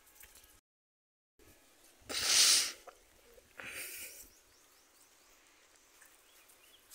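Two short bursts of breath-like noise close to the microphone. A loud one comes about two seconds in, then a quieter one about a second and a half later. The sound briefly cuts out to silence just before.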